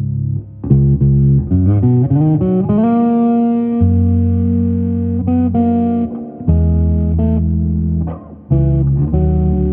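Fender Japan Boxer Series Jazz Bass Special electric bass being played: a quick run of notes that slides up into a held note, then low notes let ring, with two short breaks.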